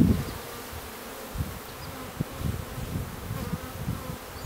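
Honeybees buzzing around an open hive as a package of bees is installed, a faint steady hum, with scattered low bumps and rustles over it.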